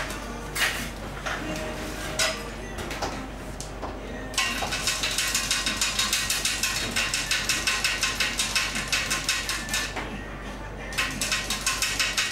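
A large knife chopping sticks of hard rock candy into short pieces against a steel guide: a few single sharp chops, then from about four seconds in a fast, even run of clicking chops, about five a second, that pauses briefly and starts again near the end.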